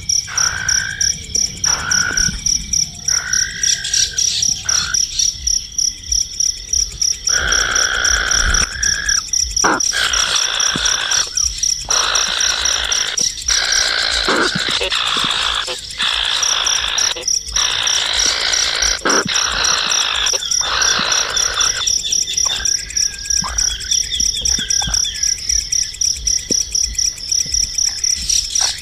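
Birds calling in bursts of a second or two, over a steady high, fast-pulsing insect trill.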